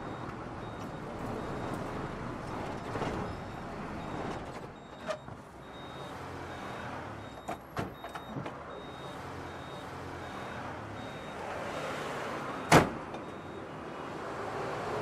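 Bus running with steady engine and road noise, and a faint high beep repeating about every half second. A few light clicks come around the middle, and one sharp loud knock comes about three-quarters of the way in.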